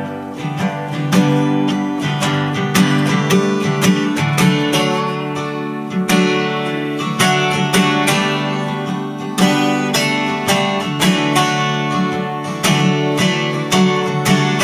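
Acoustic guitar playing an instrumental passage of a folk song, notes picked and strummed in a quick, steady run.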